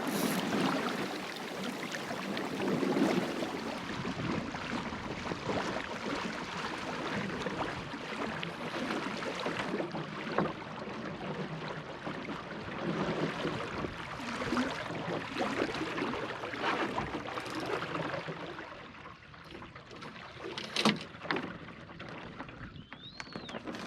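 Water sloshing and rushing along the hull of a small wooden sailing skiff under way, with a single knock near the end.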